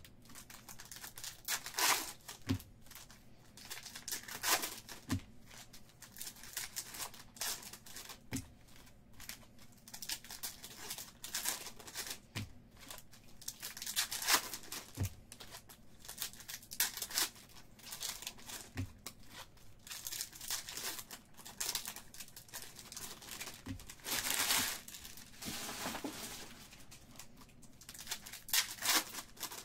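Crinkling and tearing of baseball card pack wrappers being peeled open by hand, with light clicks and soft taps of cards being handled and set down on a stack.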